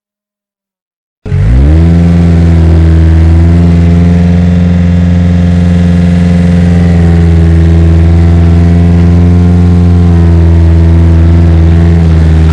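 Loud, steady engine rumble for the toy bulldozer. It starts with a quick rise in pitch about a second in and then holds one even pitch until it cuts off abruptly.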